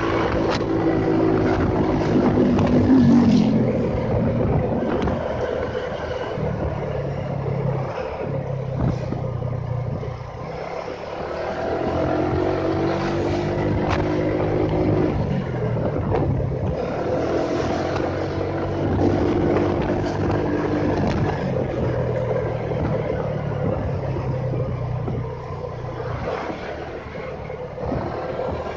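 Motorcycle engine running while riding through traffic, its pitch rising and falling several times with the throttle, over steady road and wind noise.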